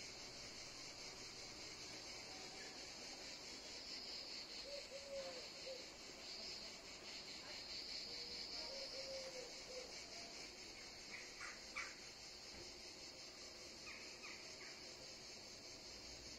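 Faint outdoor ambience: a steady high-pitched insect chorus, with a few short bird calls around the middle and near the end.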